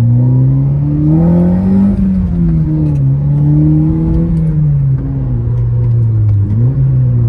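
Honda Civic Si's K24 four-cylinder engine running loud, its pitch climbing to a peak about two seconds in, dropping, climbing again around four seconds and then easing off, with a brief blip near the end.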